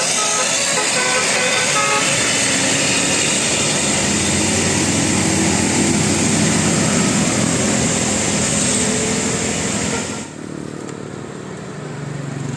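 Bus traffic: a few short notes from a bus's musical 'telolet' horn near the start, then a heavy engine growing louder over several seconds. The sound drops off suddenly about ten seconds in, leaving a quieter engine hum.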